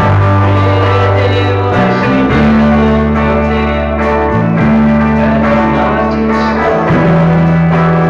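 Rock music: distorted electric guitar playing held chords that change every couple of seconds, with band backing and no clear vocal line.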